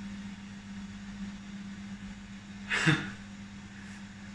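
Steady low hum of a running fan or appliance, with one fixed low tone. About three seconds in there is a single short, breathy vocal burst from a person.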